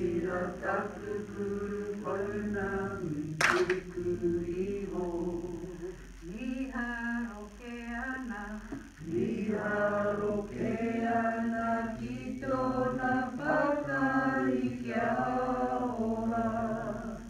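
A man and a woman singing a Māori action song together, unaccompanied. A single sharp click sounds about three and a half seconds in.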